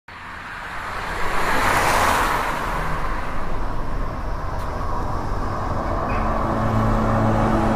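Soundtrack intro: a whoosh of noise that swells up and peaks about two seconds in, then eases, over low sustained tones, with held music notes coming in from about six seconds on.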